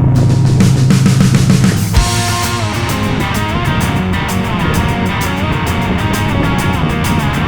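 Background rock music with electric guitar and a drum kit keeping a steady beat; the track changes about two seconds in.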